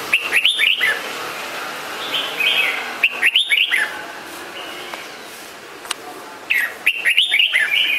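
Red-whiskered bulbul singing: short phrases of quick, chirpy notes, three phrases about three seconds apart, with a softer phrase between the first two.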